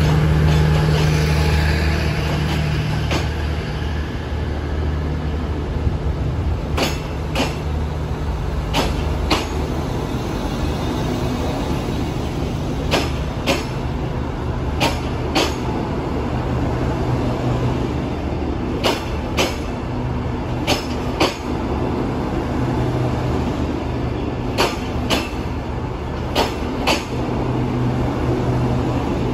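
Passenger coaches rolling slowly past, their wheels clicking over a rail joint in pairs about half a second apart, a fresh pair every few seconds. Under the clicks runs a low hum, loudest in the first few seconds.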